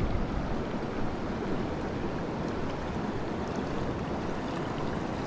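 Fast-flowing small mountain stream, its water rushing steadily.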